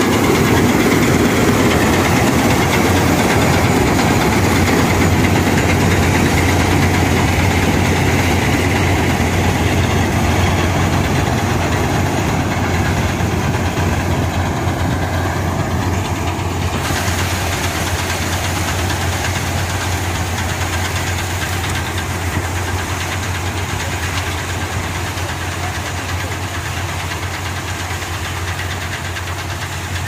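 Gurdial combine harvester harvesting soybean: its diesel engine and threshing machinery run steadily with a strong low hum. The sound slowly grows fainter as the machine moves away.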